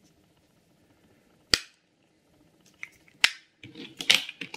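Small clear plastic compartments of a storage organizer box being snapped into the case: two sharp plastic clicks a little under two seconds apart, then a clatter of lighter clicks and rattles near the end.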